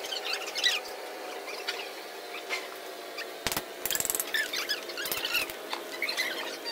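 Paper packing being handled on an electric actuator, with a run of sharp clicks about halfway through. Short high squeaks come throughout, over a steady machine hum.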